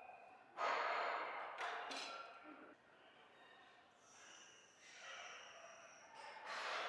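A man breathing hard during a weightlifting workout: loud, rushing breaths, a strong one starting about half a second in and another near the end.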